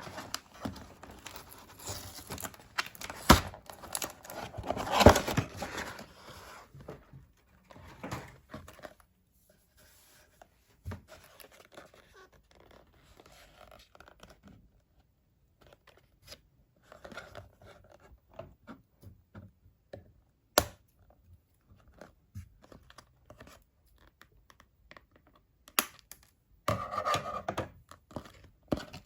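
Barbie doll packaging being opened by hand: tearing and crinkling with sharp knocks and clicks as the box is handled. It is busiest at the start, thins to scattered small clicks, and swells into rustling again near the end.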